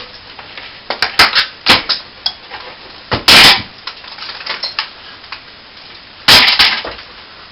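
Knocks, clicks and clatter as an air-conditioning ceiling vent and its ducting are worked loose and pulled down from a plasterboard ceiling, with two longer, louder rasping bursts about three seconds in and just past six seconds in.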